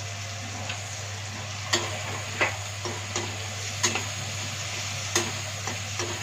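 Vegetables sizzling in oil in a metal kadhai as a steel ladle stirs them, the ladle clicking and scraping against the pan about nine times from about two seconds in.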